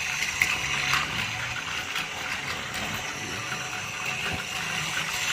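Battery-powered Plarail toy train whirring steadily from its small electric motor and gears, with a few light clicks.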